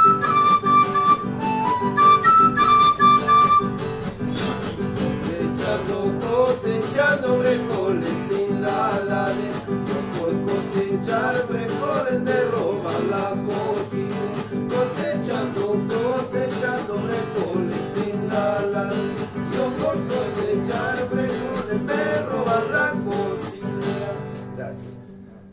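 Festive live folk music on acoustic guitars: quick, steady strumming with a melody line over it, which fades and breaks off just before the end.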